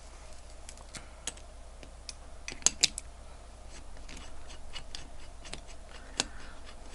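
Light scattered clicks and taps of a stainless steel watch bracelet and case being handled and set into a metal watch-holding press with plastic posts, the two loudest clicks close together near the middle.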